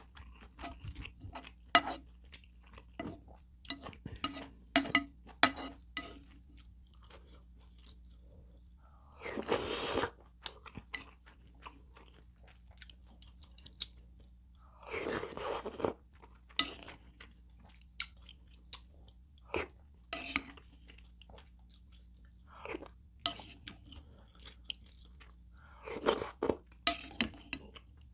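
Close-miked eating: wet chewing with crisp crunches and mouth clicks as rice soaked in ramen broth is eaten from a spoon. Three longer, louder slurps come about 9, 15 and 26 seconds in.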